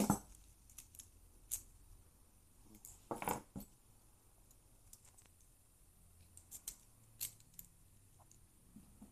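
Scattered small metallic clicks and scrapes of a Kaba-type dimple lock opening tool being inserted and worked in a lock cylinder, with a louder cluster of clicks about three seconds in.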